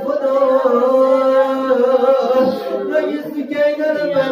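A man's solo voice chanting an elegiac recitation for Abbas, drawing out long wavering held notes with no instruments.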